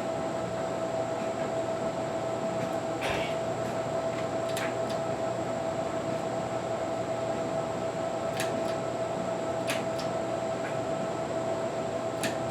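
Steady mechanical hum with one steady tone, broken by a few faint light clicks about five times.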